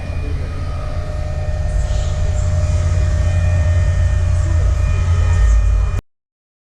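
A pickup's car audio system playing very loud, with heavy bass and steady held tones above it. It cuts off abruptly about six seconds in.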